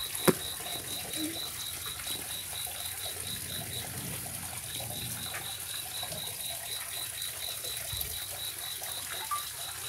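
A cricket chirping in an even pulse of about five a second, pausing briefly near the middle, over a faint trickle of water. A single click sounds just after the start.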